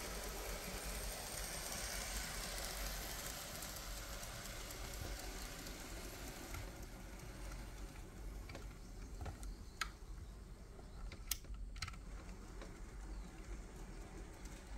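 Märklin Z scale model steam locomotive running on its track: a faint steady whir of its small motor and wheels that fades about six seconds in as it moves away. A few sharp light clicks near the end.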